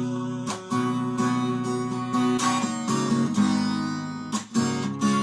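Instrumental break of a song: strummed acoustic guitar chords, with two brief breaks in the strumming, about half a second in and about four seconds in.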